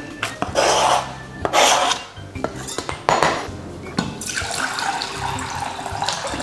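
Kitchen work: a few short scrapes and rubs on the counter, then a steady rush of running tap water from about four seconds in.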